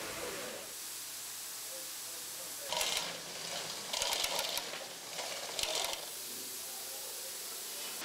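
Three short bursts of rapid mechanical ratcheting clicks, the middle one the longest, over a steady hiss.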